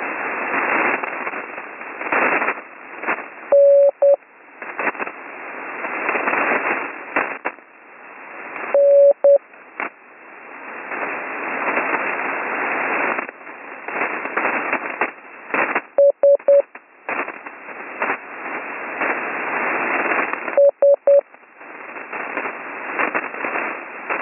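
Slow Morse code (CW): four short groups of steady beeps, spaced several seconds apart, over loud crackling HF radio static that surges up and down. The heavy static crashes come from a lightning storm disturbing the HF band.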